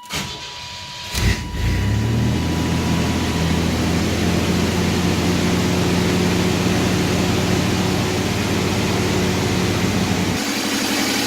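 1992 Chevy S10's 2.8 V6 engine cranked and started, catching about a second in, briefly flaring up, then settling into a steady idle. With the new idler pulley, the serpentine belt runs smooth: no bearing grind or belt squeak.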